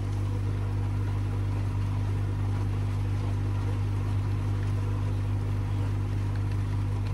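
Steady electric hum of koi pond filter equipment running: a strong low drone with faint steady higher tones above it, unchanging throughout.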